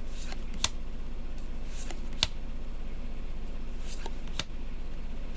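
Trading cards being handled and flipped through one by one: three sharp clicks of card stock, roughly two seconds apart, with faint rustling between, over a steady low hum.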